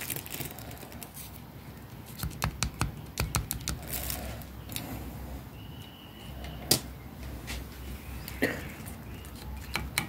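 Irregular light clicks and taps from handling the frozen multilayer pipe and thermometer probe, over the low steady hum of the Rothenberger pipe-freezing unit running.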